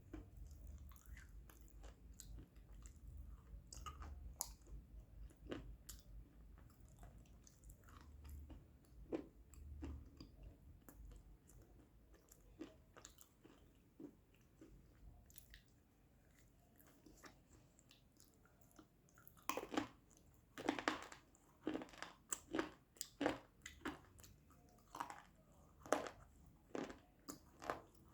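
A compressed white powder cube being crushed: scattered crisp crunches at first, then a denser run of louder crunches from about two-thirds of the way in.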